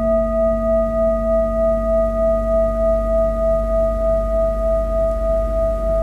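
Large metal singing bowl ringing steadily, several clear tones at once, its loudness swelling and ebbing about twice a second.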